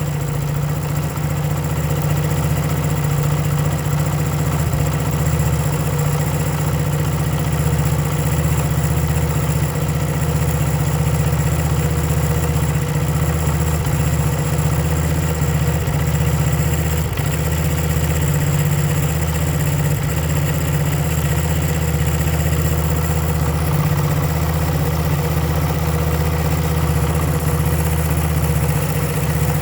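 1975 Honda CB125S single-cylinder four-stroke engine idling, with a few brief stumbles in its steady beat: a misfire that the owner puts down to worn ignition points.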